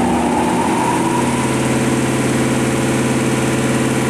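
Haas TL-1 CNC lathe's axis servo drive moving the carriage under jog: a mechanical whine that rises in pitch and settles into a steady hum about a second in.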